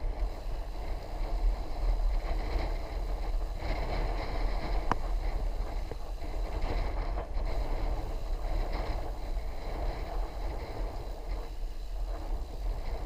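Wind rumbling on the microphone with tyre and road noise while riding a bicycle, and a single sharp click about five seconds in.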